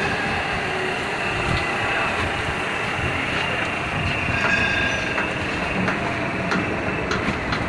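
OSC TITAN 5-axis CNC stone cutting machine running: a steady mechanical noise with faint high whining tones, and a few sharp clicks near the end.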